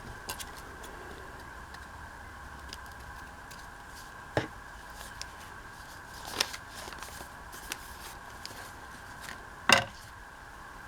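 Handling of a paper notebook on a craft table: three sharp taps or knocks, the last the loudest, over a faint steady hum.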